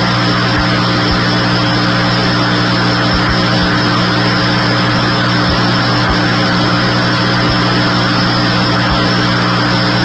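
A vehicle engine running steadily: a constant low hum under a loud, even hiss, with no change in pitch.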